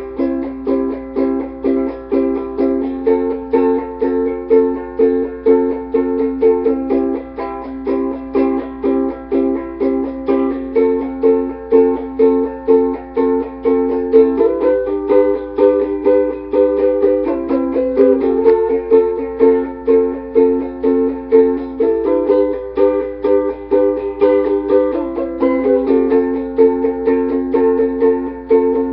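Ukulele played solo in a steady rhythm, with strokes about twice a second and the chord changing every few seconds.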